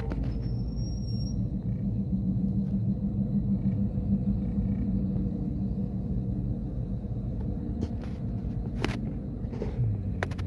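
Passenger train passing close by, a steady low rumble of its wheels and coaches on the rails.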